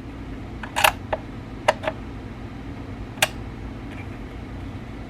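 Several short plastic clicks and clacks as a drill bit chuck is handled and set in the alignment gauge of a Drill Doctor XPK sharpener, over a steady low hum.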